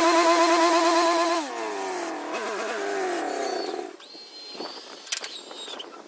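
Wood-Mizer LT40 portable sawmill's engine running steadily, then winding down about a second and a half in and stopping near four seconds. A sharp click comes about five seconds in.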